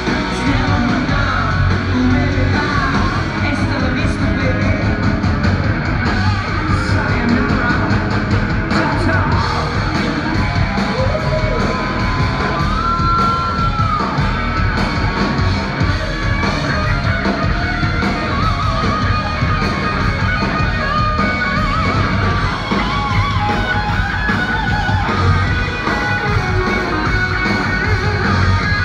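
Live rock band playing loud and steady in a large room: electric guitars, bass and drums with sung and shouted vocals over the PA.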